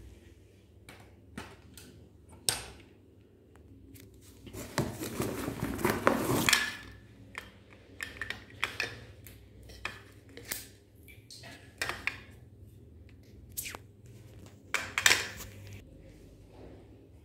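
Scattered clicks, taps and knocks as the plastic parts, cables and plug adapter of a new ring light are handled, with a longer rustle of handling about five seconds in.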